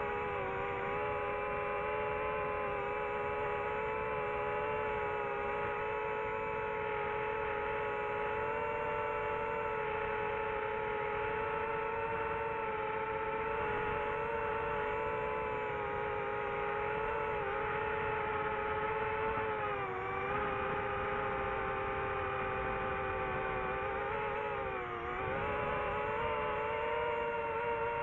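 DJI FPV drone's motors and propellers whining steadily in flight, heard from its onboard camera. The pitch dips briefly a few times as the throttle eases, most deeply about three-quarters of the way through.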